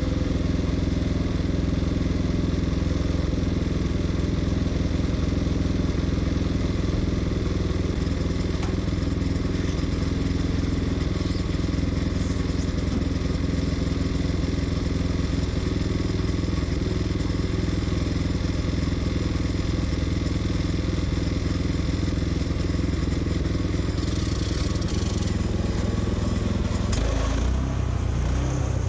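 Portable sawmill's engine running steadily while the mill slabs a black walnut log, its note shifting near the end.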